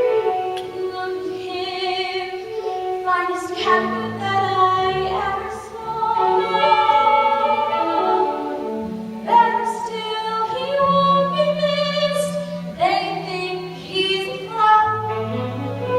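A stage-musical song: singing with long held notes, led by a female voice, over instrumental accompaniment with steady bass notes.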